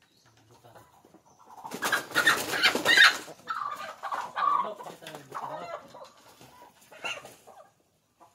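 Rhode Island Red hybrid chickens being caught off a perch: a loud flurry of wing flapping and squawking about two seconds in, followed by a run of agitated squawks and clucks, with one more call near the end.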